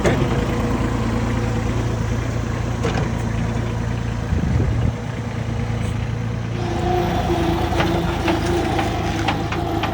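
Bobcat S70 skid-steer loader's small three-cylinder diesel engine running steadily. About six and a half seconds in a steady whine joins it, and several sharp knocks come through near the end.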